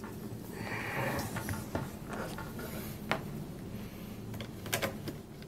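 Handling noise from a netbook being moved and set down on a wooden table: rubbing and scraping with a few light clicks and knocks, over a faint steady low hum.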